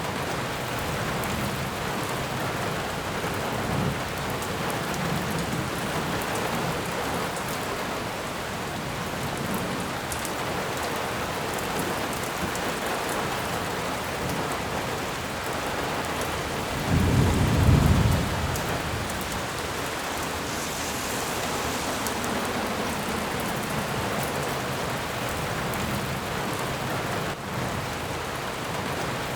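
Steady rain, an even hiss with scattered sharper drop ticks, and one brief low rumble about seventeen seconds in that stands out as the loudest moment.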